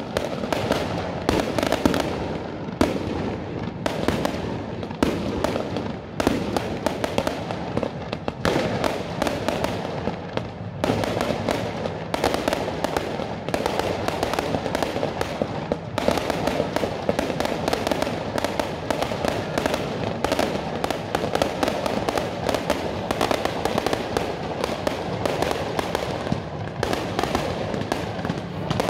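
Aerial fireworks and firecrackers going off in a dense, unbroken string of sharp bangs and crackles, several a second.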